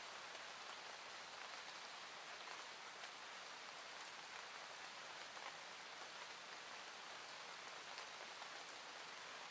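Faint, steady hiss with a few soft ticks, fading out just before the speaking resumes.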